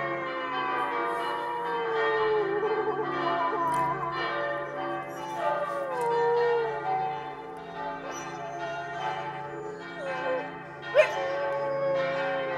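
Siberian husky howling along with ringing church bells. A long howl falls in pitch and wavers at its end, a second falling howl comes about six seconds in, and near the end a sharp rise leads into a held howl. The bells ring steadily underneath.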